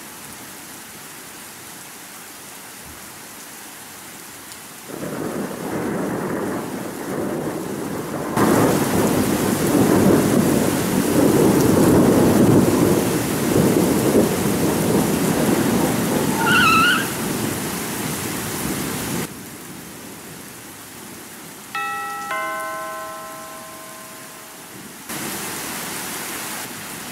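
Steady rain, joined about five seconds in by a long rumble of thunder that swells and fades away over some fourteen seconds. A little later a doorbell rings with two chiming notes.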